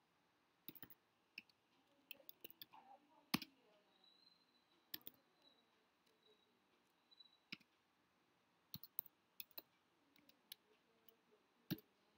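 Faint, irregular clicks of computer keyboard keys being typed, a few at a time with quiet gaps between.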